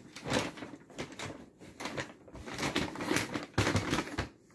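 Brown paper take-out bag rustling and crinkling in irregular bursts as a cat pushes about in it.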